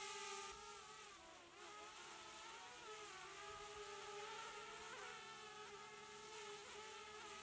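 DJI Mavic Air quadcopter's propellers whining faintly as it hovers and manoeuvres overhead, the pitch wavering up and down; it grows a little fainter about half a second in.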